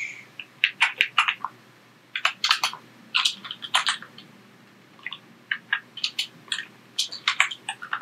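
Computer keyboard typing: quick clusters of sharp keystroke clicks with short pauses between them as a line of code is written.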